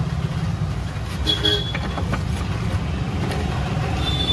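Steady low background rumble, with a few faint clicks and a short high-pitched tone about a second and a half in and again near the end.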